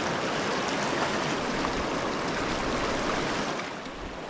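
Rushing water of the Upper Provo River, a small mountain stream, flowing steadily over rocks; it gets a little quieter near the end.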